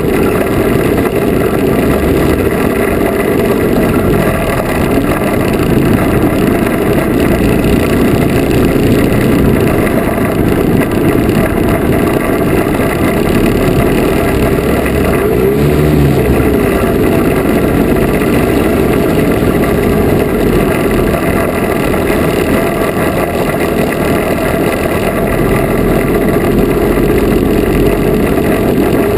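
Lazair III ultralight's twin small engines running steadily while taxiing, with a brief rise and fall in engine pitch about halfway through.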